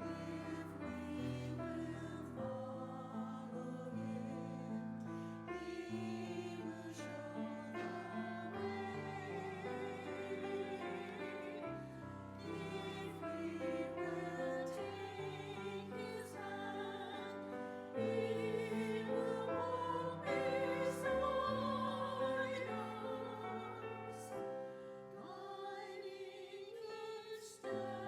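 Church music: voices singing long, wavering notes over a sustained low accompaniment, growing louder about eighteen seconds in.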